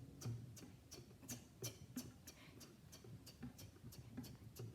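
Quiet mouth clicks imitating a 2010 Honda Civic's turn-signal blinker, ticking evenly at about three clicks a second.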